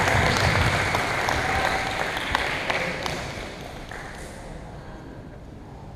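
Spectators applauding, with scattered individual claps standing out, fading away over a few seconds.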